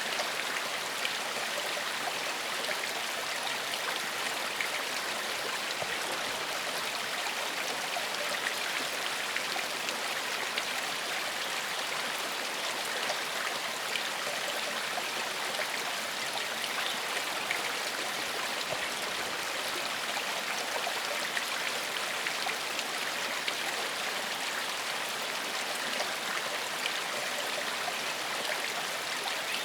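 Shallow forest stream flowing steadily over stones, an even rush of water with fine splashing and trickling.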